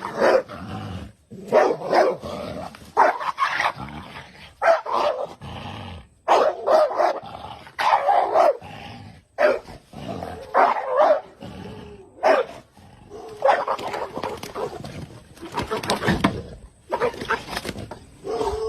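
Cane Corso barking over and over in irregular bursts, about one bark a second.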